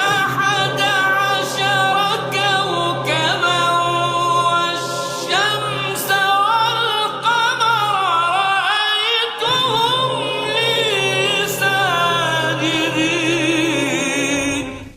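Background music: a wavering, ornamented sung melody over a steady low drone, fading out at the very end.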